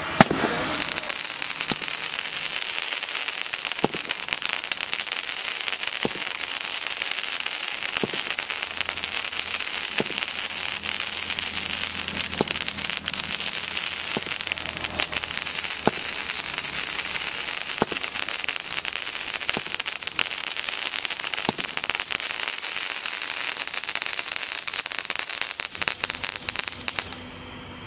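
A 12-shot aerial firework cake firing. There is a sharp shot about every two seconds, about a dozen in all, over a continuous crackling and hissing of sparks and bursting stars, and it stops shortly before the end.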